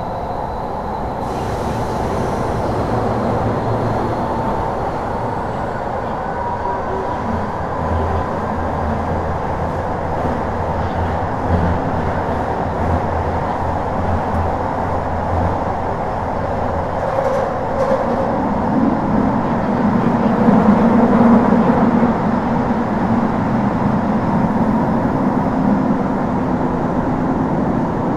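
Kyoto Municipal Subway Series 50 train (Mitsubishi GTO-VVVF traction) running between stations, heard from inside the passenger car. Continuous wheel, rail and tunnel noise with faint steady tones, growing a little louder and deeper about two-thirds of the way through.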